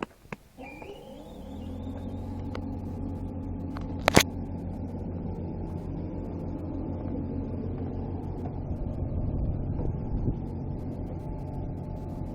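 Erkunt Kudret 100 Lüks tractor's diesel engine cranking with a short rising whine, catching within a second or so, and then running steadily. About four seconds in there is one short, loud blast.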